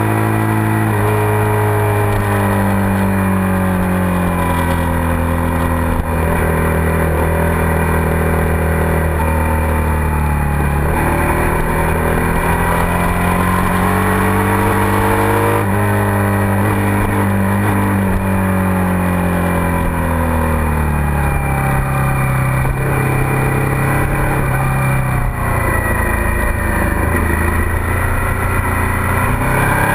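A Suzuki SV650's 645 cc V-twin engine running hard around a race track, its note rising under acceleration and falling as the rider slows for corners, several times over. Steady wind rush is heard from a camera mounted on the bike.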